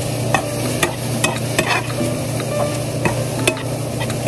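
Food frying in a pan on the stove: a steady sizzle with sharp pops and ticks scattered through it, over a low steady hum.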